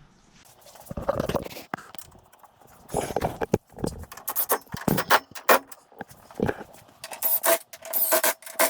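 Hand tools and metal parts clinking, clanking and rattling in irregular bursts of knocks and jingles, busiest in the second half.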